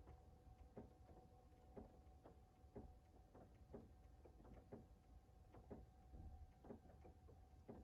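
Faint rain tapping in irregular ticks, about two a second, over a low steady hum.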